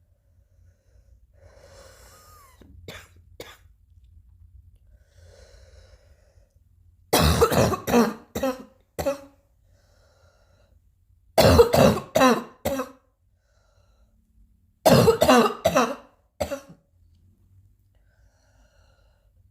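Three fits of coughing, each a quick run of four or five harsh coughs, the first about seven seconds in, then two more a few seconds apart. Faint breathing and a couple of small clicks come before them.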